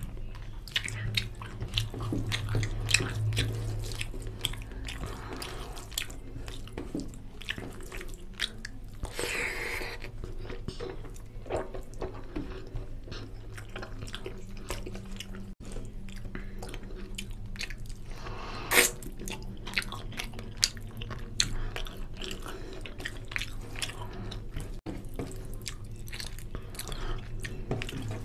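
Eating sounds: wet chewing and mouth clicks, with fingers squishing rice and chicken curry around a steel plate. A short noisy burst comes about a third of the way through, and one sharp click about two-thirds of the way through.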